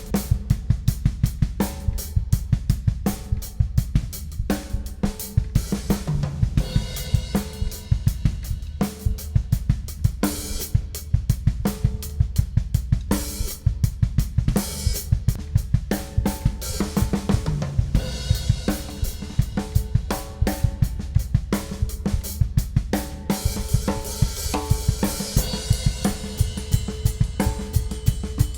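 Ludwig Classic Maple drum kit played solo in a steady groove, with a Ludwig Supraphonic snare, hi-hat and bass drum, and Paiste crash cymbals ringing out several times.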